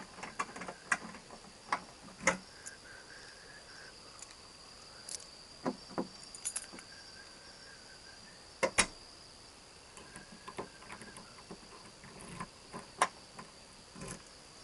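Crickets trilling steadily at a high pitch, with scattered sharp clicks and knocks; the loudest knocks come about two seconds in, near the middle, and about thirteen seconds in.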